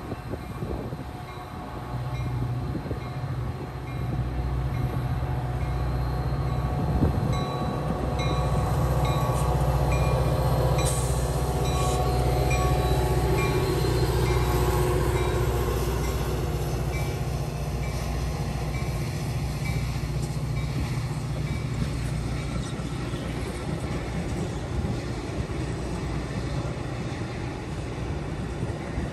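Metra commuter train pulling out: its diesel locomotive runs loud as it passes close by, and a bell dings steadily for the first ten seconds or so. Then the bi-level passenger cars roll by with a steady rumble of wheels on rail.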